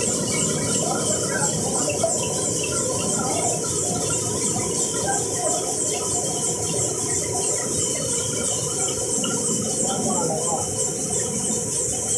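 Multicolour printing press running steadily, with a fast regular ticking high up over its even mechanical din, a steady hum and small squeaks.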